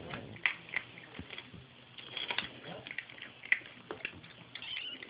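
Four-week-old kittens wrestling: scattered small taps, scuffles and scrabbling of paws and bodies against a surface.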